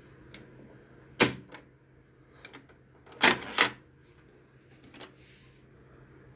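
Cassette tape hiss with a steady mains hum under it, broken by a series of sharp mechanical clicks and clunks: a loud one about a second in, a double one just past three seconds, and a few fainter ticks between.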